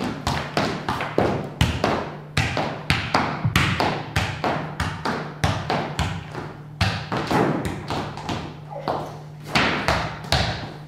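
Football being juggled: a steady run of ball touches, about two to three a second, over a low steady hum.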